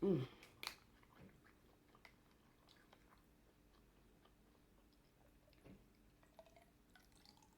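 Faint chewing and mouth sounds of someone eating, with scattered small clicks over a faint steady hum.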